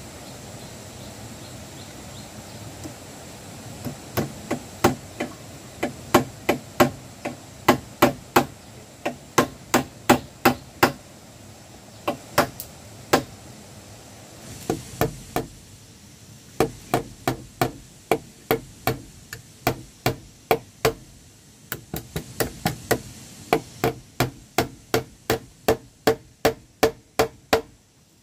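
Hand hammer striking the wooden planks of a chicken coop: a long run of sharp knocks, about two to three a second, starting about four seconds in and broken by a couple of short pauses.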